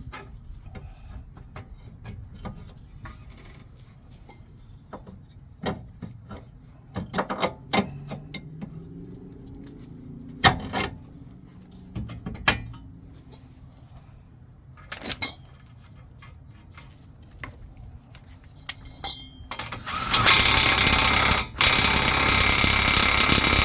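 Scattered metal clanks and knocks, then an impact wrench hammering loudly for about four seconds near the end, with a brief break after its first second, running the front axle nut down tight.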